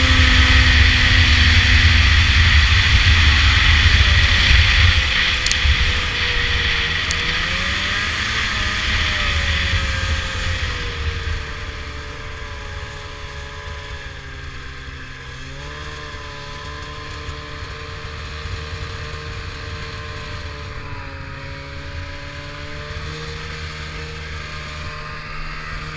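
Polaris Indy 500 snowmobile's two-stroke engine running at speed with wind noise. Partway through it eases off to a quieter, steadier, lower-pitched run.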